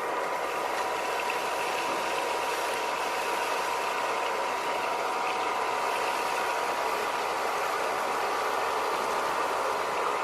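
A small electric motor, the fan motor of a homemade vacuum cleaner, running steadily with a constant high whine over a rushing hiss.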